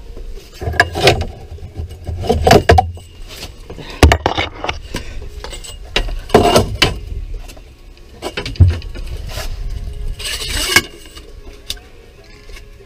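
Knocks, thumps and metallic clatter of gear being handled in a small fishing boat as the aluminium landing net is grabbed and lifted, with a short hissing noise about ten seconds in.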